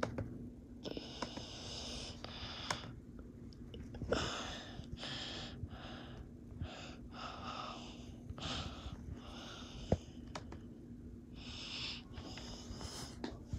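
Breathing close to the microphone: a run of short, noisy breaths at uneven spacing over a faint steady hum, with a single sharp click about ten seconds in.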